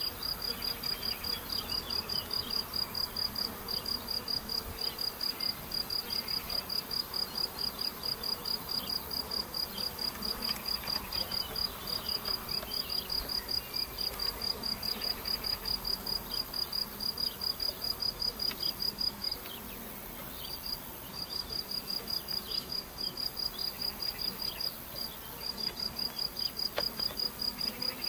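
A cricket chirping in a steady train of rapid, evenly spaced high-pitched chirps, breaking off for a second or two about two-thirds of the way through. Beneath it is a faint buzz of honeybees flying at the hive entrance.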